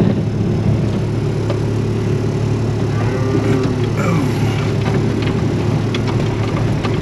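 Four-wheel-drive vehicle's engine running steadily while driving slowly over a wet pasture, with a constant low hum.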